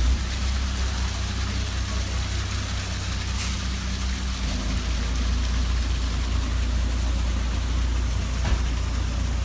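Moored fishing boat's diesel engine idling: a steady low hum over a hiss of wind and water, with one short knock near the end.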